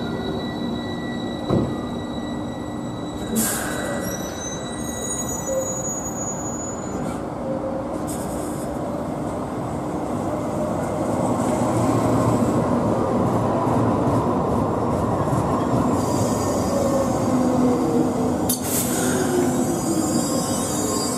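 Karlsruhe light-rail trams at a street stop. A departing Stadtbahn car's motor whine fades away, with brief high wheel squeals. Then an S11 set of Duewag GT8-80C and GT6-80C cars rolls in close by, its wheels rumbling louder and its motor tone falling in pitch as it slows.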